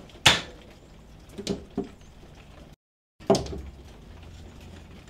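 A sharp knock followed by two softer thuds, then a sudden dead-silent gap and another sharp knock, like a wooden door or shutter being handled.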